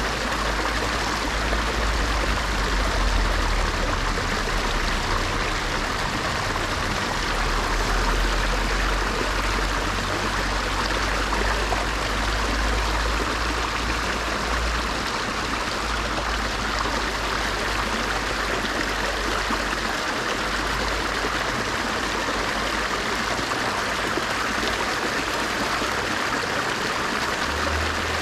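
Steady rush of a flowing stream, even and unbroken.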